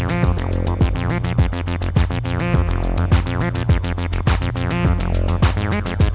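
Eurorack modular synthesizer patch playing electronic music: a fast, even run of sharp, clicky drum-machine hits over a steady low bass and sustained pitched synth tones.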